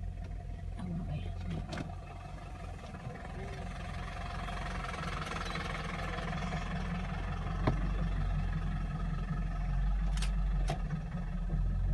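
A vehicle engine idling with a steady low rumble, with a few sharp clicks, the loudest one a little over halfway through.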